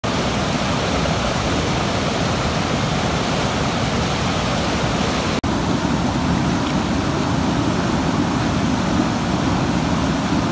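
Loud, steady rushing of a fast mountain river's white water. A little over five seconds in, the sound breaks off for an instant and comes back slightly deeper.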